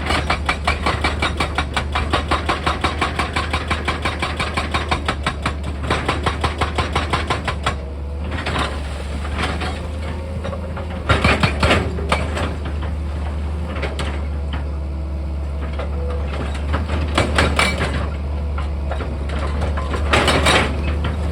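Heavy machine's diesel engine running steadily, with a rapid run of repeated hammering strikes, about five a second, for the first eight seconds or so. Later come three short, loud rattling bursts.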